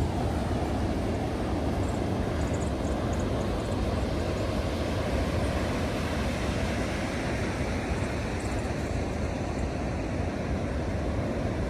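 Pacific surf breaking on the beach: a steady, continuous roar of rolling waves.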